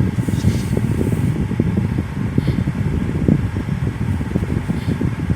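Steady low rumble inside a moving car: engine and road noise with a continuous rush of blowing air.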